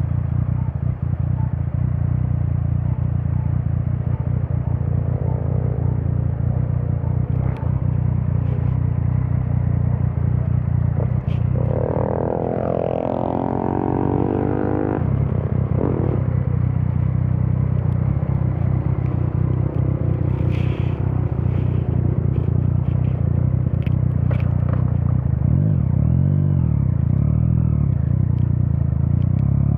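Yamaha MT-09's inline three-cylinder engine through an Akrapovič exhaust while riding, with a steady low rumble and wind noise. The engine note rises and falls with the throttle, most strongly about halfway through and again near the end.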